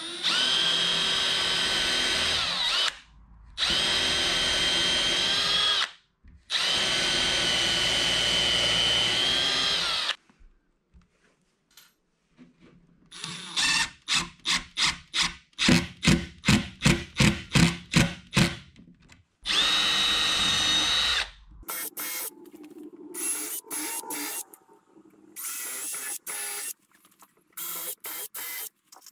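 Milwaukee M12 Fuel cordless drill pre-drilling screw holes in birch plywood, running in three steady whines of a few seconds each. Midway a Milwaukee M12 Fuel impact driver drives screws in a fast, even run of short pulses. Then the drill runs again, once for a couple of seconds and then in several short bursts.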